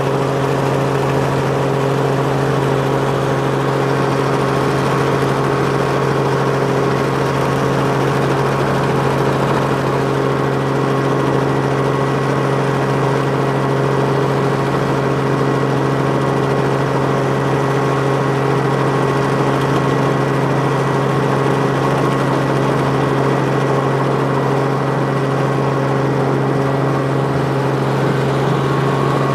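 Helicopter engine and rotor running steadily in flight, heard from inside the cabin: a loud, even drone with a deep hum and several steady tones above it.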